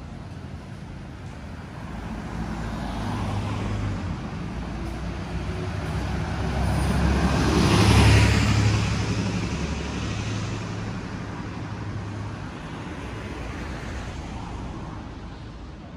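A motor vehicle passes close by on the street. Its low engine hum and tyre noise build over several seconds, peak about halfway through, then fade away.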